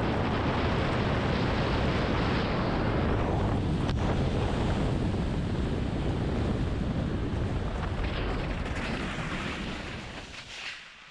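Wind buffeting the microphone: a loud, steady rush that fades away over the last couple of seconds.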